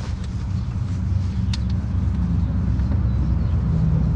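Steady low rumble of a running engine or machine nearby, growing slightly louder, with a single sharp click about one and a half seconds in.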